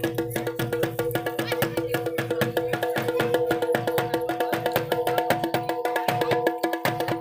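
Traditional folk music: fast, even drum strokes over a steady drone of held notes.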